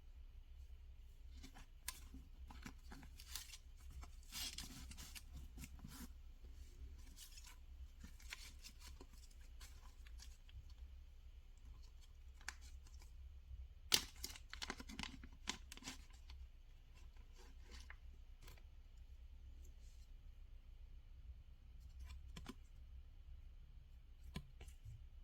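Packaging being opened by hand: scattered rustling, tearing and small clicks, busiest about four seconds in and again about fourteen seconds in, over a low steady hum.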